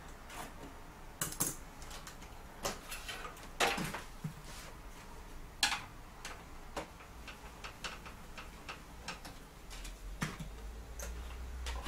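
Irregular clicks and light knocks of hands working parts inside an open desktop PC case, pulling out the graphics card.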